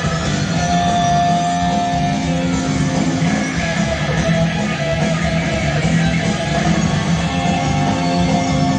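Rock band playing live, electric guitar to the fore over bass and drums, with long held guitar notes.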